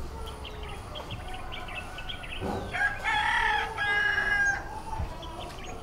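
A rooster crowing: one long, drawn-out crow about halfway through, with small birds chirping faintly before it.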